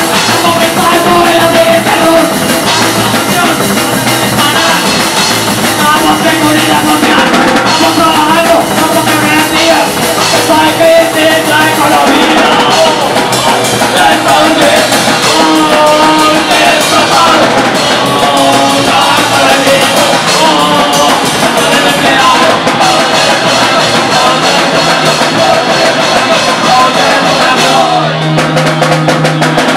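Punk rock band playing live and loud in a small room: distorted electric guitar, bass guitar, drum kit and sung vocals. Near the end the drums and cymbals stop and a single held note rings on.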